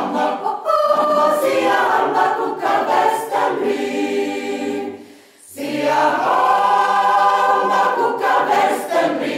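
A choir singing slow, held chords, breaking off briefly about five seconds in and then starting again.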